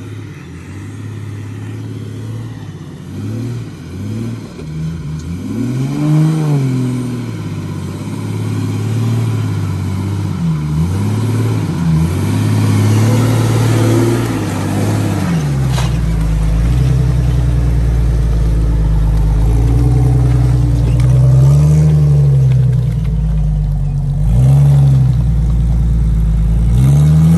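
Off-road Jeep engine revving up and down again and again, its pitch rising and falling in repeated surges. A deeper steady rumble joins about halfway through.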